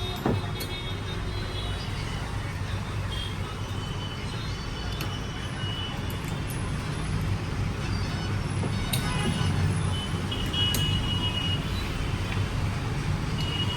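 Motorcycle engine running steadily at idle, a low even rumble, with a few short high-pitched tones over it.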